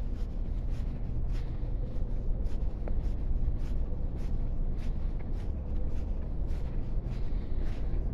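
Footsteps of a person walking at an even pace, about two steps a second, over a steady low background rumble.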